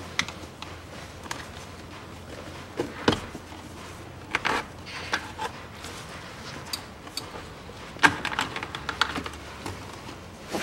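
Scattered plastic clicks, taps and scrapes as the cabin air filter is pried and slid out of its plastic housing behind an Opel Astra GTC's glovebox, with a busier run of clicks about eight seconds in.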